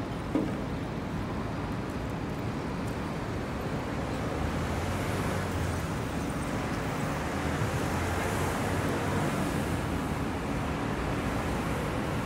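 Steady city traffic noise, a constant low hum of passing vehicles, with a single sharp knock about half a second in.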